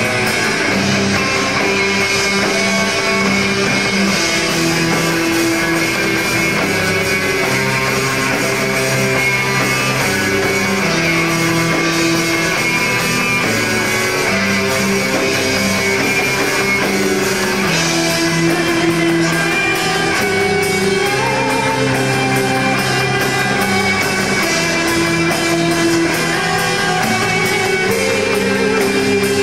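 Live rock band playing, with guitars holding long notes over the drums.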